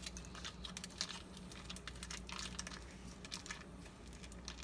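Faint crinkling and small clicks of a foil cream cheese wrapper being handled and squeezed over a mixing bowl, over a steady low hum.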